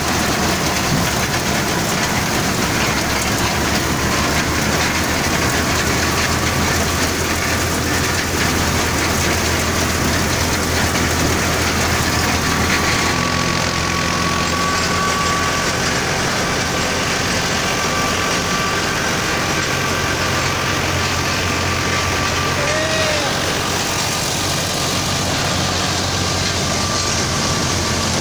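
Tractor-powered wheat thresher running steadily: a constant engine drone under the noise of the threshing drum.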